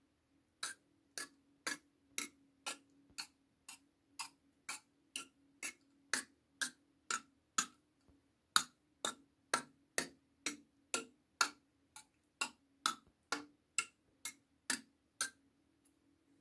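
Wooden octochime (an eight-tongued wooden tongue drum) tapped with a nail brush in a steady beat, about two clicks a second, stopping shortly before the end.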